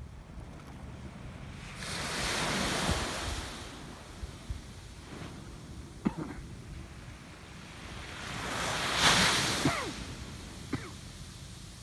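Sea waves breaking on the shore, one surge about two seconds in and a louder one about nine seconds in, each trailing off in small splashes, over a steady rumble of wind on the microphone.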